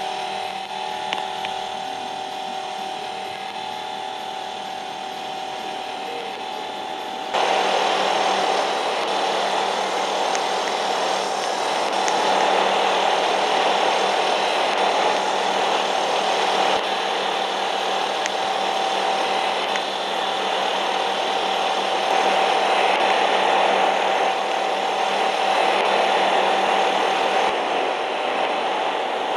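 Daikin split air conditioner running with a steady hum and whine. About seven seconds in it gets abruptly louder, with a strong rush of air over one steady whine.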